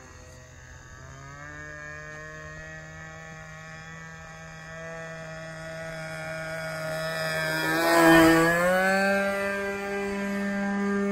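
The engine of a radio-controlled SIG Astro Hog model plane running in flight. Its steady buzz shifts in pitch a few times and swells to loudest about eight seconds in, as the plane comes close.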